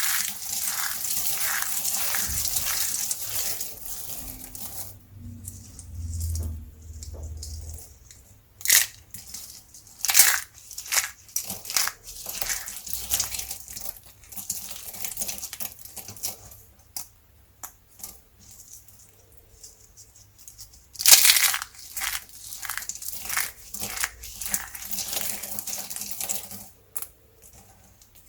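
Dry soap being crushed and broken apart by hand. The first few seconds are continuous crumbly crackling, followed by a string of separate sharp cracks and crunches, the loudest about twenty seconds in.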